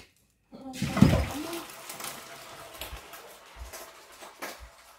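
Water rushing with a steady hiss, starting suddenly with a knock about half a second in and slowly dying away, with a few light knocks later on.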